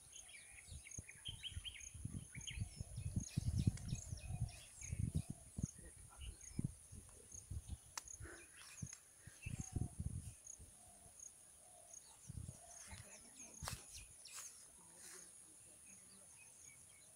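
Outdoor bird chirps and calls over a steady high insect drone with evenly spaced high pips. Irregular low bumps on the microphone for roughly the first ten seconds.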